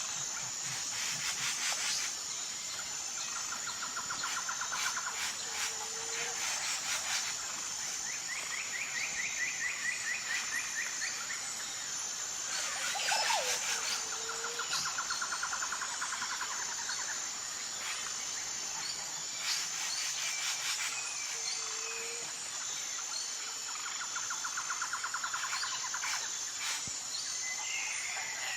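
Tropical rainforest ambience: a steady, high-pitched pulsing insect drone under repeated bird trills, each lasting a second or two and coming every few seconds. A short, lower call recurs at intervals, and one falling call stands out about halfway through.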